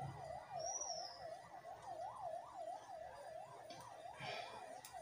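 An emergency vehicle siren in rapid yelp mode, heard faintly, its pitch sweeping up and down about three times a second without a break.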